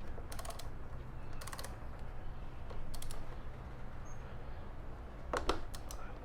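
Ratchet of a wrench clicking in four short bursts of rapid clicks as the front axle clamp bolts are tightened, the last burst, near the end, the loudest.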